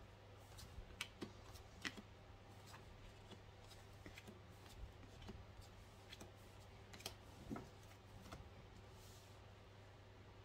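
Faint taps and slides of tarot cards being dealt one at a time from the deck onto a table, a few sharper clicks among them, over a low steady hum.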